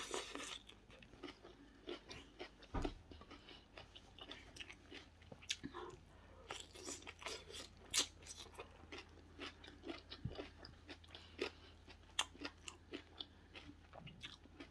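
A person chewing and biting a mouthful of shredded carrot salad: irregular crunches and mouth clicks, with a few sharper ones standing out.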